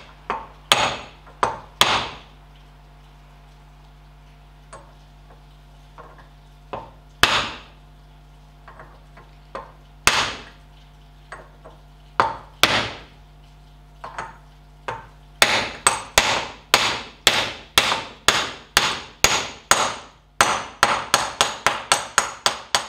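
Wooden mallet striking a steel tube drift to tap the outer bearing race into a Ferguson TE20 front wheel hub. A few spaced taps come first, then about two-thirds in a steady run of blows that speeds up to several a second near the end as the race is driven home.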